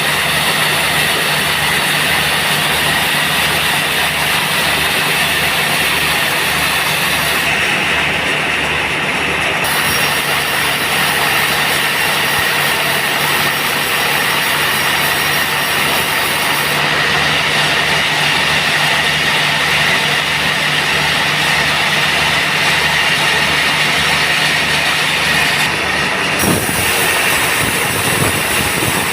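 Band sawmill running: a steady, loud machine noise with a low rhythmic pulse. About 26 seconds in there is a short sharp knock, and the low hum drops away.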